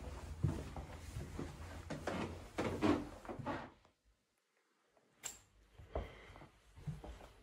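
Footsteps and knocks from a handheld phone being carried through the rooms, over a low rumble. About four seconds in, the sound drops to dead silence for a second and a half, then comes back with a sharp click and more scattered knocks.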